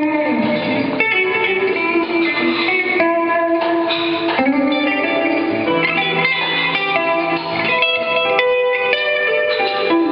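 A live band playing, led by an electric guitar picking a melodic line over sustained chords.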